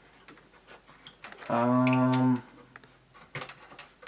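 Scattered light clicks and taps of plastic parts and connectors being handled on an opened Commodore 64. About a second and a half in, a man gives a short, steady-pitched hummed "hmm", the loudest sound.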